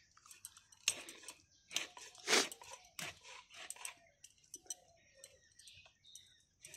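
Scaly bhetki (barramundi) fish being pushed through a boti blade by hand: irregular crunching and scraping strokes as the steel cuts through scales and bone, the loudest about two and a half seconds in.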